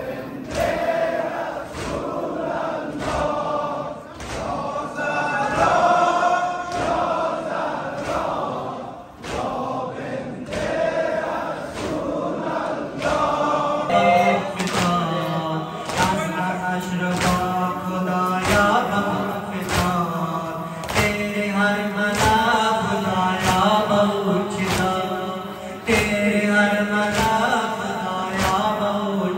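A male-led Shia mourning chant (noha) sung into a microphone, with a crowd of men chanting along and beating their chests (sineh-zani) in unison, sharp slaps about once a second. About halfway through, the chanting grows fuller.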